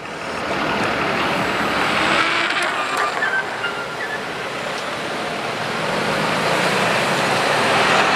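Busy city street traffic: cars and a bus passing close by, a steady rush of engines and tyres on the road.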